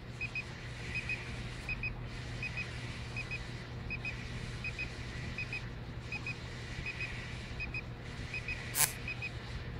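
Vinmetrica SC-300 SO2 analyzer beeping in short double beeps, a pair about every two-thirds of a second, which signals that the titration has reached its endpoint. A steady low hum runs underneath, and there is one sharp click near the end.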